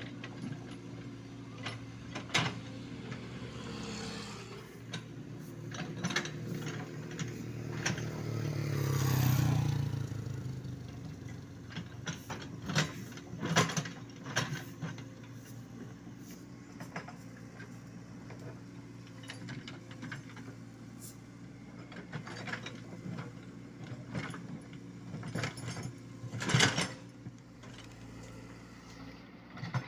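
Komatsu PC75UU mini excavator's diesel engine running steadily under load while its bucket scrapes soil and stones, with frequent sharp metallic clanks and knocks. A vehicle passes, swelling up and fading about nine seconds in.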